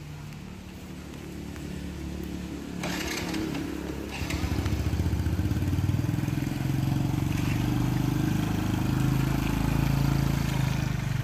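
Small step-through motorbike engine running at idle, with a brief scraping rattle about three seconds in. From about four seconds in the engine gets louder and throbs as the bike pulls away and rides off.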